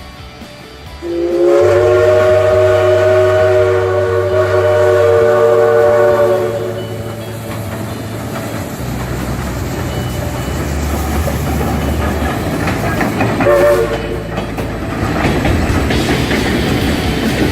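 A locomotive whistle sounds one long chord-like blast of about five seconds starting a second in, then a short toot later on. Throughout, the train's cars rumble and the wheels clickety-clack on the rails.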